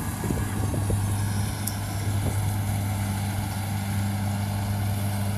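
Rice combine harvester's engine running with a steady, even drone as the machine works through the field.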